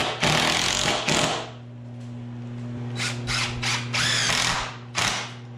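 DeWalt cordless impact driver driving screws into a wooden 2x4 brace: one long run at first, then a few short bursts as the screws are seated.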